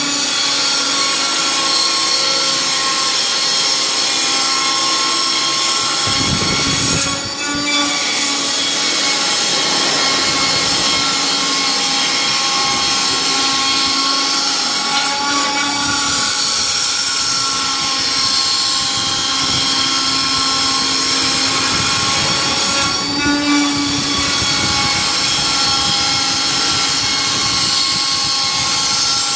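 Large CNC router running, its spindle giving a loud, steady high-pitched whine made of many tones over machining noise. A low rumble joins about six seconds in, and the tone briefly shifts about every eight seconds as the machine changes its movement.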